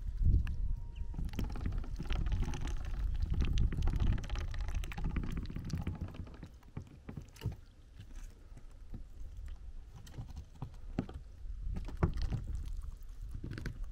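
Ducklings pecking chopped onion from a plastic bowl and dabbling at a waterer: scattered bill taps and small wet splashes over a low rumble.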